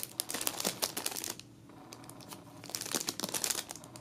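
Clear plastic packaging bag around a squishy toy crinkling as a hand squeezes and handles it, in two bouts of crackling with a short lull between.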